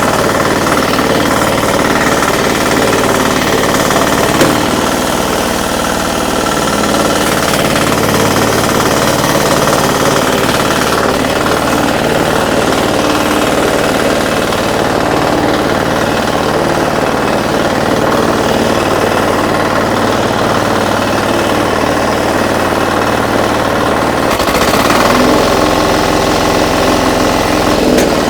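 Four-wheel power weeder's small engine running steadily with a rapid hammering beat as the machine is driven.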